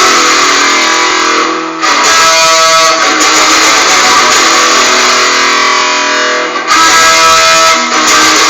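A guitar strummed loudly, playing a rock song, recorded harsh and overloaded on a phone camera's microphone. There are brief dips between phrases, about two seconds in and just before seven seconds.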